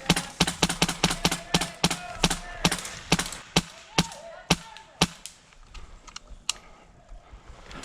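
Airsoft guns firing in an exchange of fire: sharp cracks at an irregular pace, about two a second, thinning out after about five seconds with one more shot later.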